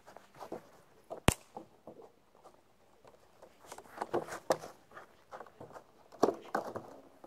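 Irregular soft thuds and rustles of feet and paws moving on a lawn, with one sharp click about a second in.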